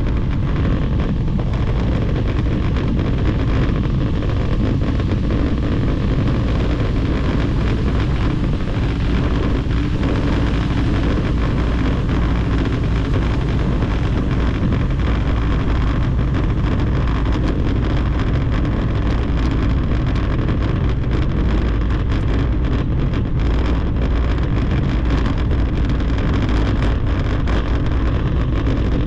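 Steady wind rushing over the microphone of a camera riding on a bicycle, over a continuous low rumble from the tyres rolling on brick paving, with fine rapid patter from the joints between the bricks.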